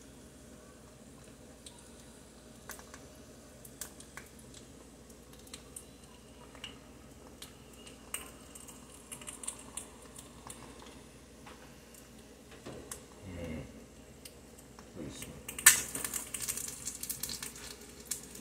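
Faint scattered clicks of a utensil against a pan, then near the end a sudden loud sizzle as pork pieces fry in the hot pan.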